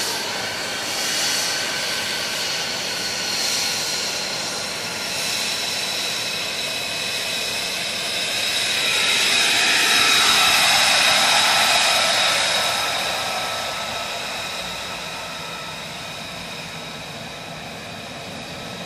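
F-35B Lightning II's F135 turbofan engine at taxi power: a high, steady multi-tone whine over a rushing jet noise. It grows loudest about ten seconds in as the jet rolls past, then slowly eases off.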